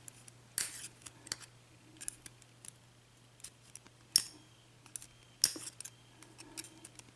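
Irregular small metallic clicks and scrapes of hand tools working in an Assa oval lock cylinder, trying to free a pin stuck in the bible. A faint steady low hum runs underneath.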